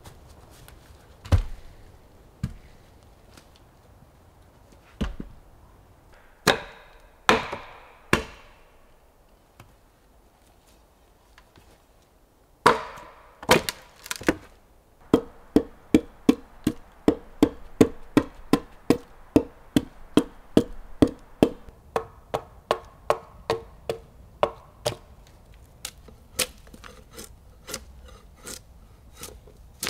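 Axe chopping into a wooden log. First come a few separate heavy chops and knocks. Then an even run of about two to three blows a second lasts around ten seconds, and it tapers to lighter, sharper knocks near the end.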